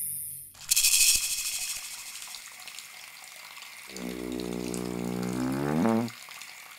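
Electronic music made in Max MSP: a sudden burst of rushing, hissing noise about half a second in that slowly dies away, then a low buzzing synth tone from about four seconds in whose upper overtones bend upward before it cuts off about six seconds in.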